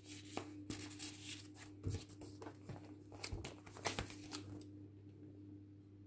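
Faint rustling and crinkling of paper as journal pages and a tucked-in card are handled and a page is turned, in short scattered scrapes that thin out near the end.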